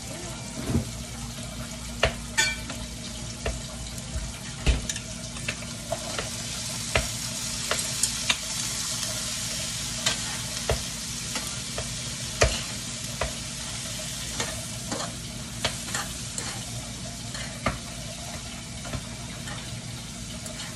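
Green beans searing in a frying pan with bacon, onions and butter: a steady sizzle, with a utensil knocking against the pan every second or so as they are stirred.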